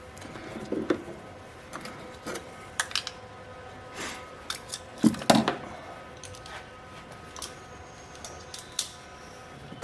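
Irregular clicks, taps and light knocks of hand tools and small metal parts being handled while working on an RV refrigerator's control board, with the loudest pair of knocks about halfway through, over a faint steady hum.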